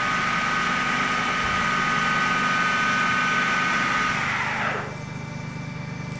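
Gildemeister N.E.F. 480 CNC lathe turning a part, its spindle drive giving a steady high whine over the cutting noise. About four seconds in the spindle spins down, the whine falling in pitch, and a quieter steady machine hum is left.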